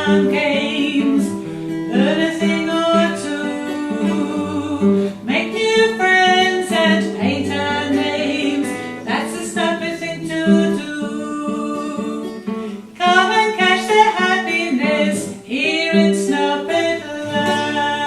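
Theme song of a children's puppet show, sung to a strummed acoustic guitar.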